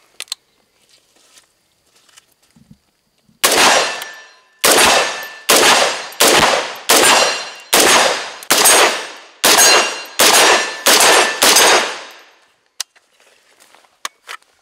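Tinck Arms Perun X16 rifle fired semi-automatically, about eleven shots at a steady pace of a little over one a second, each followed by a fading echo; the string runs without a stoppage, showing the 3D-printed plastic lower holding up. A few light metallic clicks of the rifle being handled follow.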